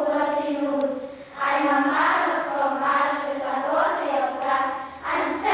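Children's choir singing together in long held phrases, with short breaks about a second in and near the end.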